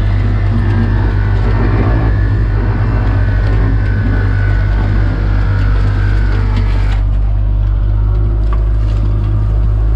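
Small shrimp trawl boat's engine running steadily, with a faint high whine over it that stops about seven seconds in.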